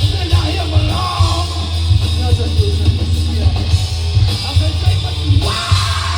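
Live rock band playing loud, with electric guitar over a heavy, steady low bass.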